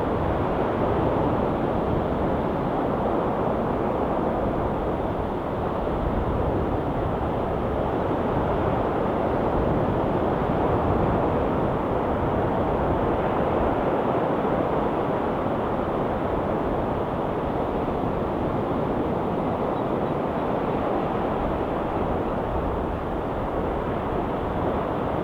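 Ocean surf washing in a steady, unbroken rush, swelling and easing gently in level.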